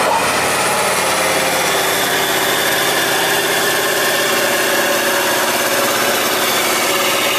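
Tatra 815 truck's air-cooled diesel engine working hard at steady revs while the truck climbs a steep dirt slope.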